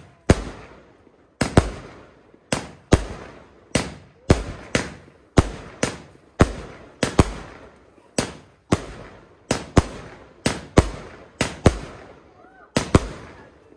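Fireworks going off in a rapid, irregular string of sharp bangs, nearly two a second, each one trailing off briefly after the blast.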